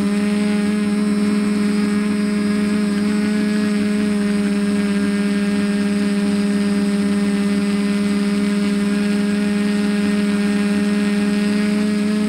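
TBS Discovery quadcopter's Sunnysky brushless motors spinning 10x5 carbon propellers, a steady hum that holds one pitch while the craft hovers, heard close up from the camera mounted on its frame.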